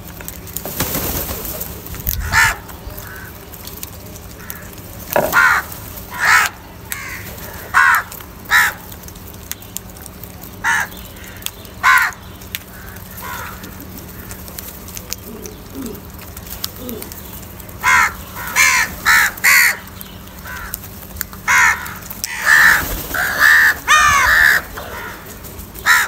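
House crows cawing. Single harsh caws come every second or two at first, then runs of several quick caws in a row come about two-thirds of the way through and again near the end.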